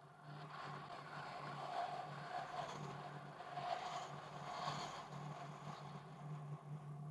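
Rushing road and wind noise from a moving vehicle, over a steady low hum. It comes in just after the start and drops away suddenly at the end.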